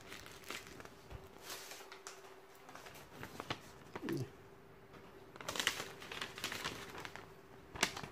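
A plastic zip bag and paper instruction sheets rustling and crinkling as they are handled and unfolded, in irregular bursts with a few sharp clicks.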